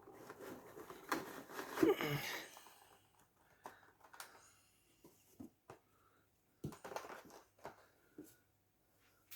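Packaging being handled: plastic and card crinkling and rustling for the first few seconds, then a scattering of light clicks and taps.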